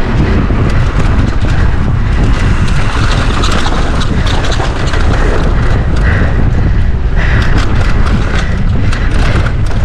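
Mountain bike ridden fast down a rough dirt trail: wind buffeting the action camera's microphone with a steady low rumble, and many short clicks and rattles as the tyres and bike run over dirt and rock.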